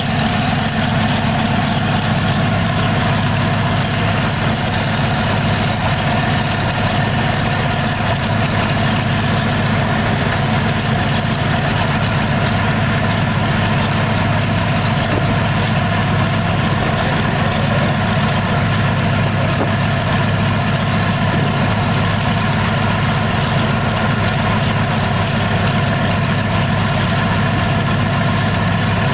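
Pratt & Whitney R-1830 Twin Wasp radial aero engine from a B-24 Liberator running steadily on a ground test stand, its propeller turning.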